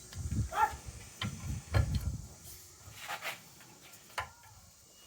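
Knocks, thuds and metallic clicks of a hydrant part being tightened in a vise, heaviest in the first two seconds and sparser after. A short whining call sounds about half a second in.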